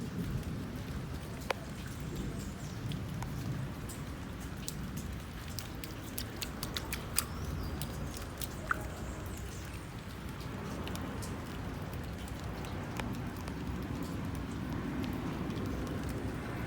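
Rain falling, a steady wash of noise with scattered sharp ticks of single drops striking nearby surfaces.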